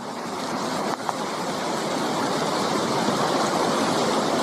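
Floodwater rushing downstream as a river flood wave carries wood and ice floes: a steady, heavy rush of water.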